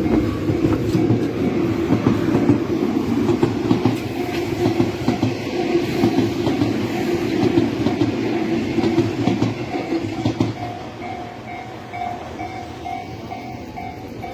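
A Tobu Tojo Line electric train runs over a level crossing, its wheels clattering over the rail joints, and the rumble dies away about ten seconds in. The crossing's warning bell keeps ringing in a steady repeated beat, clearer once the train has gone.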